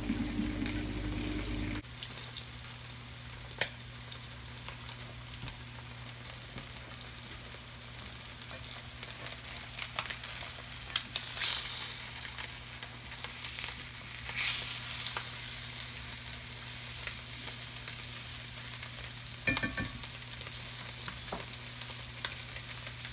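Floured Spanish mackerel fillets frying in hot peanut oil in a nonstick skillet: a steady sizzle that swells twice in the middle, when the fillets are turned with a spatula. There are a few light clicks, and a steady low hum runs underneath.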